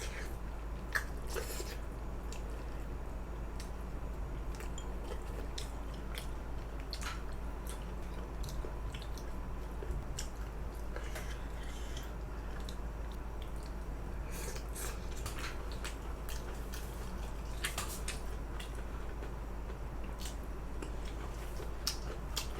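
Close-miked eating: a person chewing and biting food, with many scattered soft clicks at an irregular pace, over a steady low hum.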